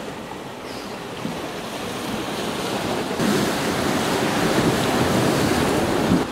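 Ocean surf washing over jetty rocks, a steady rush with some wind on the microphone, getting louder about three seconds in.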